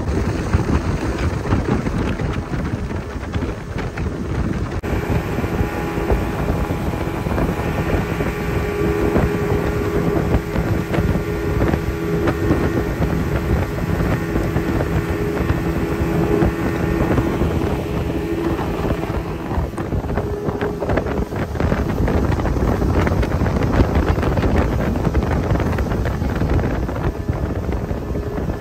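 Yamaha Enduro 115 two-stroke outboard running at speed, a steady engine drone over rushing water, with wind buffeting the microphone. The noise grows heavier from about two-thirds of the way through.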